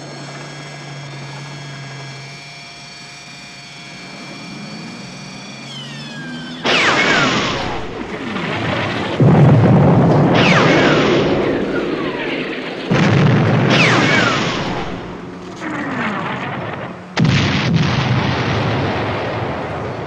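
A military tank's engine humming steadily, with a short rising whine about six seconds in. Then a series of about five heavy booms of cannon fire and explosions follows, each sudden, with a long rumbling tail.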